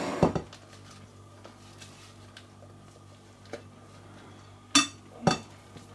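Two sharp knocks, about half a second apart near the end, as a plastic food-processor bowl is knocked against the rim of a dish to shake out its chopped contents; before them only faint handling sounds.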